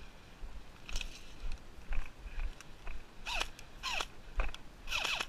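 Footsteps through dry grass and undergrowth, with a few short scraping swishes of gear and clothing brushing, the last three close together near the end.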